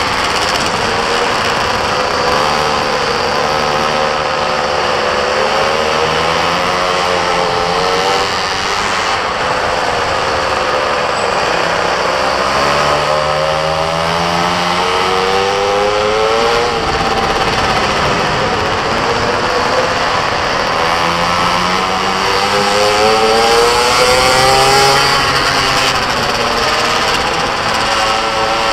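Small mini moto engine revving up and dropping back again and again while lapping, its pitch climbing and falling every few seconds over a steady rush of noise.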